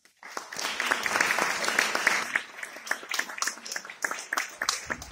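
Audience applauding. It starts suddenly just after the music ends, is full and dense for about two seconds, then thins into more scattered claps.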